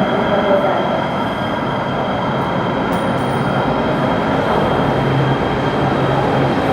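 LA Metro light-rail train running underground: a steady rumble of wheels and motors with a thin, high, steady whine over it.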